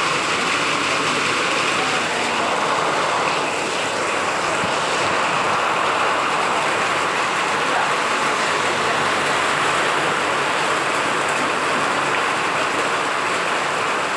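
Heavy rain pouring down, a steady dense hiss that holds without let-up.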